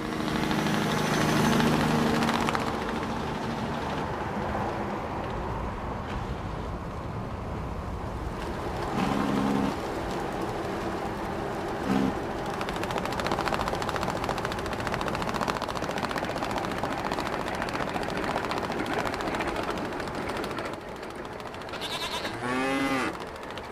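Bleating animal calls over a steady outdoor background noise: a longer call at the start, a short one about a third of the way in, a very brief one around halfway, and a wavering call near the end.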